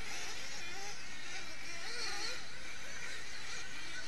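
Several 1/8-scale nitro buggy engines racing round a dirt track, their whines overlapping and rising and falling in pitch as they rev through the corners and straights, over a steady hiss.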